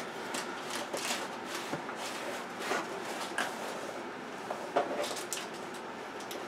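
Cardboard shipping box being opened by hand: flaps pulled and folded back, with scattered rustles, scrapes and light knocks of cardboard.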